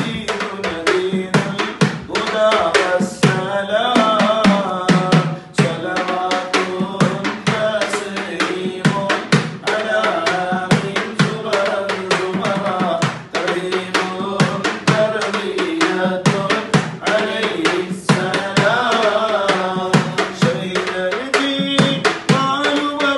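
Male voices singing an Arabic devotional baith, with a hand drum beating a quick, steady rhythm under the singing.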